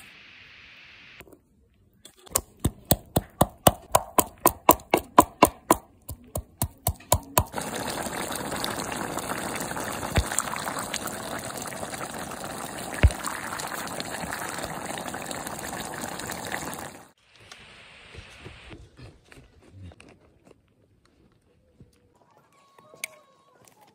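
Wooden pestle pounding ginger in a wooden mortar, a run of sharp strikes at about three a second. Then a pot of pork stew bubbling steadily for about nine seconds, stopping suddenly.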